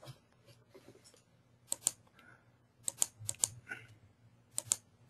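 Clicking at a computer as the software is worked: several sharp clicks, most in close pairs, in three groups over a faint low hum.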